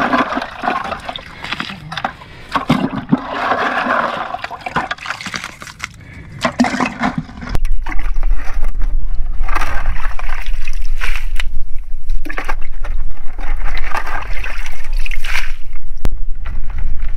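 Digging by hand in a water-filled hole in wet beach sand: water sloshing and splashing, with scrapes and knocks. About seven seconds in, a loud low wind rumble on the microphone sets in and stays, with the splashing still heard through it.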